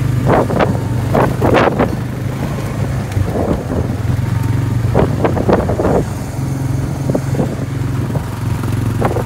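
Cattle hooves knocking irregularly on a tarmac road as cows and calves walk close past, in clusters of strokes, over the steady hum of an engine running.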